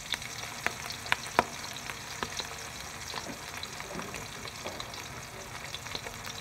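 Pieces of fish shallow-frying in hot oil in a wok: a steady sizzle with scattered sharp pops and crackles, two louder pops a little over a second in.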